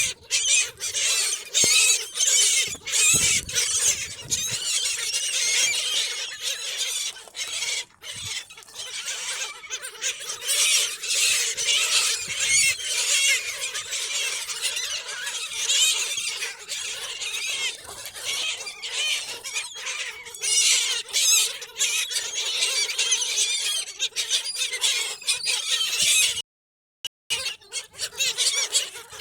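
A flock of seagulls calling over one another in a continuous, high-pitched squealing chorus while being fed fish. The sound cuts out for under a second near the end.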